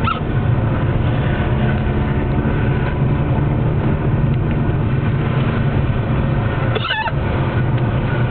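Steady car-cabin road and engine drone, broken near the end by one short, sharp vocal hiccup.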